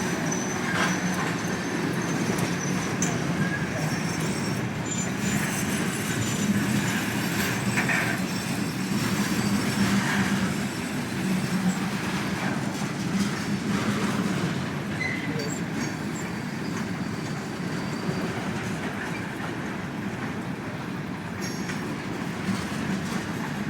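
Kansas City Southern manifest freight train's cars rolling past on the rails: a steady rumble of wheels on track, with thin high wheel squeals now and then.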